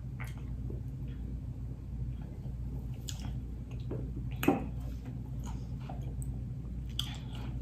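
Quiet eating sounds: someone swallowing and chewing, with scattered soft clicks and crackles, the sharpest about four and a half seconds in. A steady low hum runs underneath.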